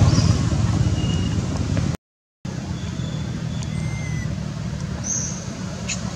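Steady low rumble of a motor vehicle engine, cutting out completely for about half a second about two seconds in. A few faint short high chirps and a single click near the end sound over it.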